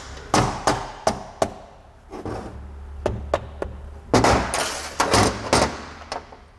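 Red mallet tapping the end of a Saginaw power steering pump's input shaft again and again, driving the shaft and vane pump assembly out of its housing: a run of sharp knocks, several a few tenths of a second apart, with metal parts clunking on the steel bench.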